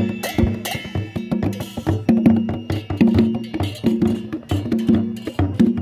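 Traditional double-headed barrel drums played by hand in a quick, steady rhythm. Bright cymbal clashes ring over the drums near the start.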